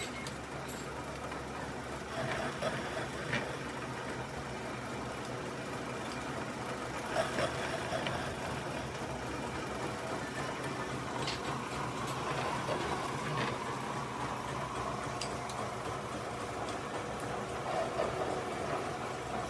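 Milling machine running steadily during gear cutting, with a few faint clicks.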